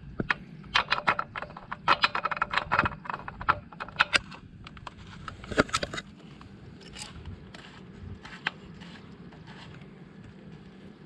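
Quick clicks and scrapes of a cap being fitted back on and handled, dense for about the first six seconds, then only a few scattered ticks.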